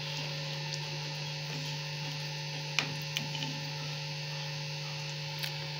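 Steady low electrical hum with a faint hiss behind it, and a couple of light clicks about three seconds in.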